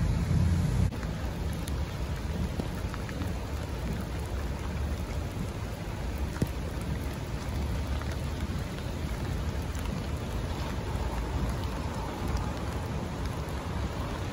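Steady rain falling on a wet, flooded road, with a heavy low rumble that eases about a second in.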